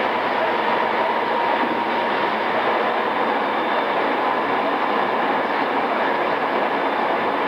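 Running noise inside a JR East E217-series electric train's motor car, before its renewal: a steady rumble of wheels on rail at cruising speed, with a faint steady tone underneath. Recorded on cassette tape, so the top end is dull.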